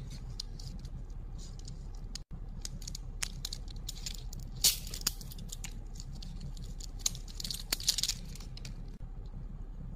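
Crinkling of a candy wrapper being peeled open by hand, scattered crackles with two louder bursts of rustling, about halfway and again about three-quarters through, over a steady low hum.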